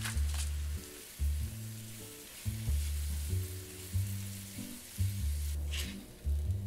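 Sliced mushrooms and diced onion sizzling steadily as they fry in oil in a nonstick frying pan, stirred with a silicone spatula; a short scrape of a spoon against the pan near the end as some are scooped out.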